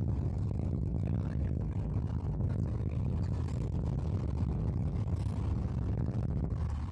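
Car driving at steady highway speed: a constant low rumble of engine and tyre noise.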